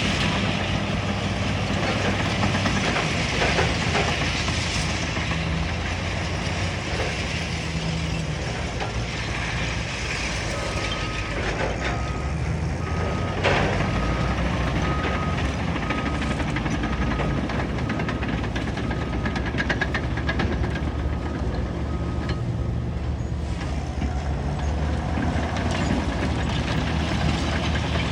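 Caterpillar bulldozer's diesel engine running steadily under work. Partway through, a reversing alarm beeps evenly, about one and a half beeps a second, for some twelve seconds. Around the first third of the beeping there is a single sharp metallic knock.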